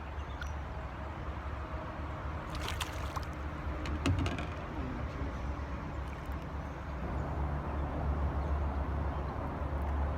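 Water sloshing against a small boat over a steady low rumble, with a few sharp clatters of gear being handled between about two and a half and four seconds in.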